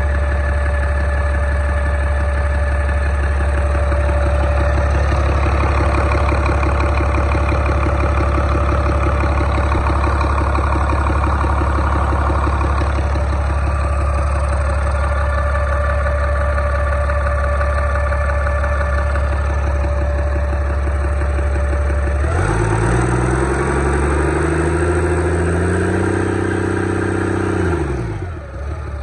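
2000 Caterpillar 3126 7.2-litre turbocharged inline-six diesel, a used engine assembly run out of the truck on a crate, idling steadily. About three-quarters of the way through it is revved up, held at the higher speed for a few seconds, then drops back toward idle near the end.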